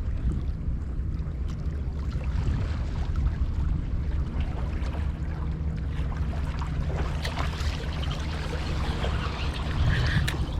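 Steady low engine-like hum with a haze of wind and water noise and a few faint clicks.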